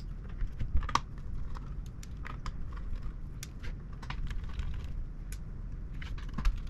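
Irregular light clicks and taps of small hard parts and a screwdriver being handled while a graphics card is worked on by hand, with a few louder knocks about a second in and near the end.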